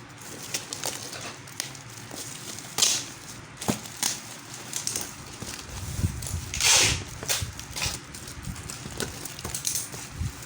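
Packaging being handled and opened: irregular rustling and crinkling with scattered clicks and taps. The longest, loudest rustle comes about two-thirds of the way through.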